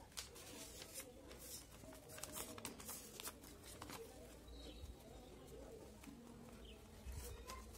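Faint rustling and crackling of lined notebook paper being folded and creased by hand into a paper plane, with a run of short crinkles in the first few seconds.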